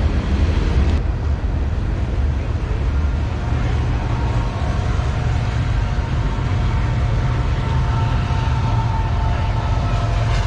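A vehicle's engine running steadily with a low rumble, and a faint higher whine joining in after about three seconds.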